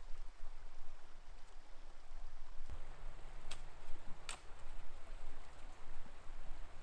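Floodwater rushing through a washed-out road culvert as a steady, even rush. Before the middle a low steady hum joins it, and two sharp clicks follow.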